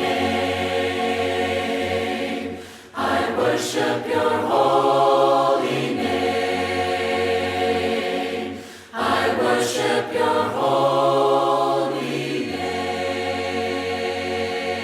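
A choir of mixed voices sings a worship song in harmony, likely a cappella. It holds long, slow chords, with two short breaks between phrases.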